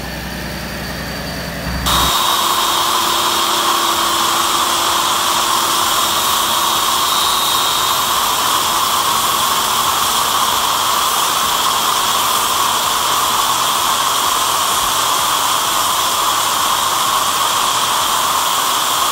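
A supercharged 5.0 Coyote V8 in a 2017 Mustang GT idling, cut off about two seconds in by a pressure washer spraying through a foam cannon, a loud steady hiss.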